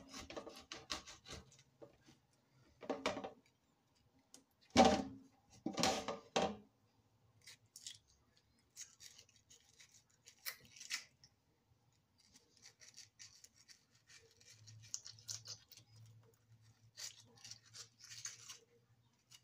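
A serrated knife cutting into a beefsteak tomato and scraping out its core, in short rasping strokes. There are a few louder knocks in the first six seconds.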